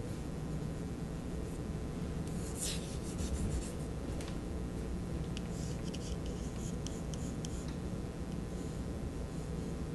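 Pencil scratching on drawing paper: one longer stroke a couple of seconds in, then a run of short quick strokes, over a steady low hum.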